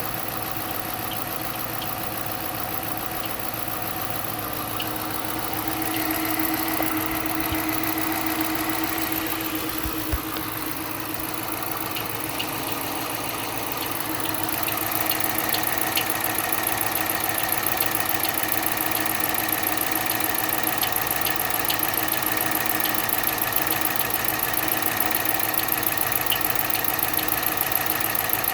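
2013 Dodge Charger engine running with a knock. The car is a former police vehicle with 140,000 miles on it. The sound gets louder about six seconds in and again about fourteen seconds in, then holds steady.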